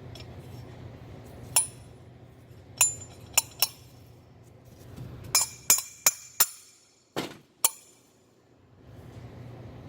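Metal parts of a disassembled Volvo D13 EGR valve clinking and knocking as they are handled and set down: about ten sharp, ringing clinks, some in quick pairs, with a short lull near the end.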